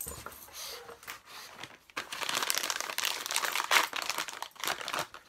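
A dog-treat bag crinkling and rustling as it is handled and opened, turning into a dense crackle from about two seconds in.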